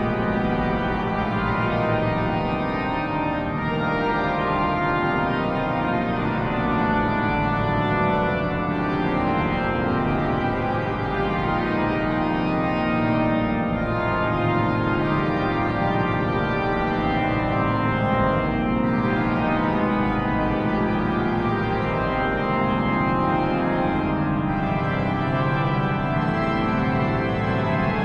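Pipe organ playing continuously and loudly, with dense sustained chords and jazz-derived harmony over a deep pedal bass.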